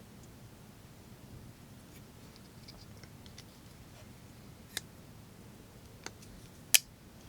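Summit Knife Co. Half Dome framelock folding knife being handled: a few faint ticks, then three sharp metallic clicks, the last the loudest, as the blade and lock are worked.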